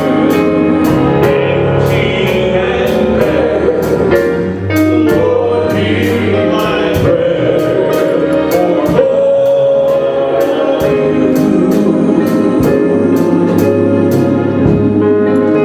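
Gospel worship music: voices singing together over instrumental backing, with a steady beat of high percussion taps about twice a second.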